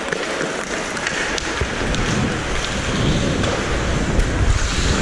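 Wind rumbling on a helmet-mounted action camera's microphone as a referee skates, over the steady hiss of skate blades on the ice; the rumble grows stronger after about two seconds. A few sharp clicks of sticks and puck are heard.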